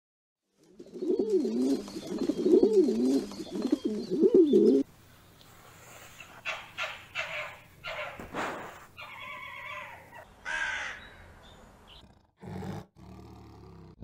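A flock of pigeons cooing, several rough, wavering coos overlapping, ending abruptly about five seconds in. Quieter, scattered short calls and clicks follow.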